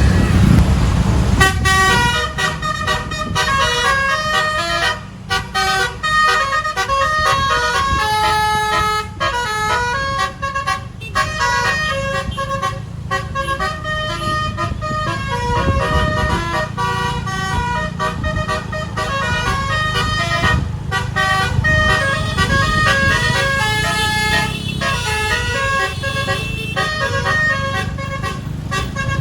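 Bus 'telolet basuri' multi-trumpet musical horn playing a fast tune of short stepped notes, starting about a second and a half in. Under it is the low steady running of the bus.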